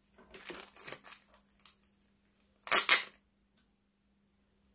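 Small clear plastic glitter pots and lids being handled: soft rustling and light clicks, then one short, louder plastic clack-and-scrape nearly three seconds in.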